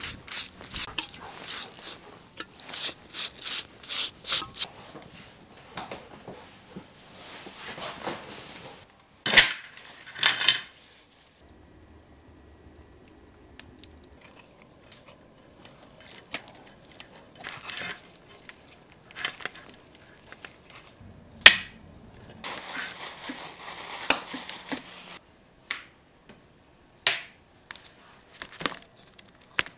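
Quick scraping strokes at a wire grill grate and two louder bursts, then a wood fire in a brick oven crackling faintly. Near the end a knife cuts and tears through the tough, scaly skin of a sturgeon, with sharp clicks.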